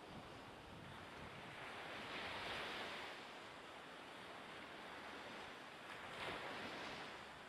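Sea waves washing and surging with some wind, rising into louder rushes twice, about two seconds in and again near the end.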